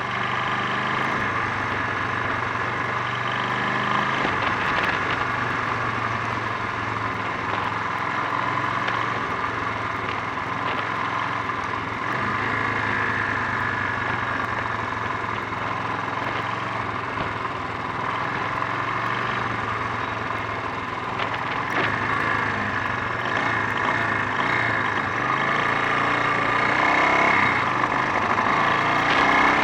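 Honda XL 350's single-cylinder four-stroke engine running steadily, on a bike that the rider reports misfiring.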